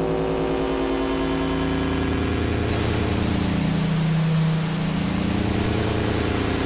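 Sound design for a show's logo intro: a steady, engine-like drone made of several held low tones, joined about a third of the way in by a hiss like static.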